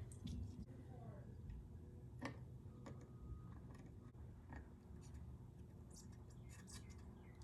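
Faint, scattered small clicks and taps from handwork on a controller circuit board with small tools, over a low steady hum.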